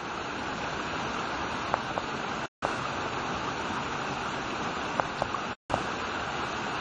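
Steady rushing noise with no clear source, cut off twice by brief complete silences about two and a half and five and a half seconds in, with a few faint short tones.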